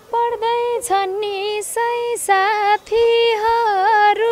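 A woman singing a Nepali folk song in a high voice, holding long notes with short breaks between phrases.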